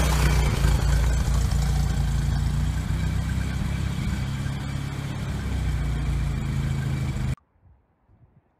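1916 Ford Model T's four-cylinder side-valve engine running as the car moves off past the camera, getting slightly quieter. The sound cuts off abruptly a little over seven seconds in.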